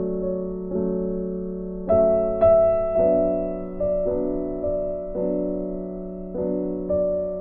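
Background piano music: slow, soft chords struck about once a second, each fading before the next.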